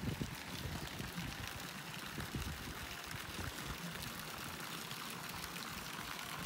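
Steady splash and trickle of water, a fountain jet pouring into a swimming pool.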